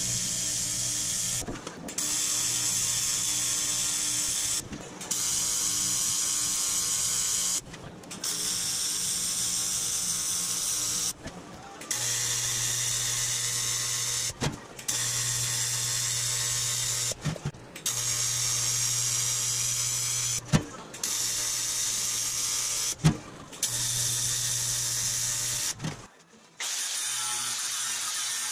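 TIG welder arc buzzing steadily while butt-welding thin aluminum cowl panels, a constant low hum under a hiss, in repeated runs of two to three seconds that stop abruptly, one short length of seam at a time. Near the end a sanding disc on the welded seam takes over with a steady hiss.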